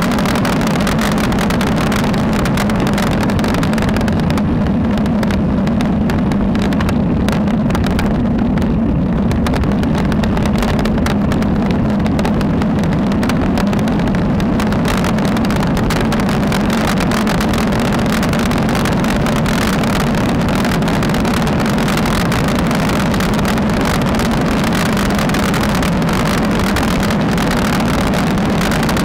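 Steady, loud wind rush and road noise picked up by a Tectectec Xpro 1 action camera mounted low on a road bike while riding at speed.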